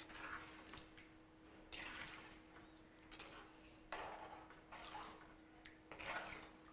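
Perforated steel ladle stirring thick sambar in a clay pot: a series of faint scrapes and sloshes, about six strokes, over a low steady hum.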